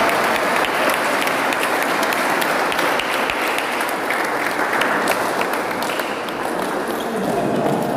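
A small group of spectators applauding, many hands clapping at once.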